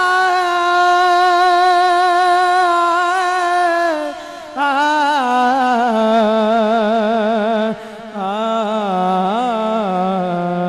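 A man's solo voice singing long, drawn-out notes with wavering ornaments in devotional recitation style, stepping down in pitch from a high held note to a low one. It breaks twice for breath, about four and eight seconds in.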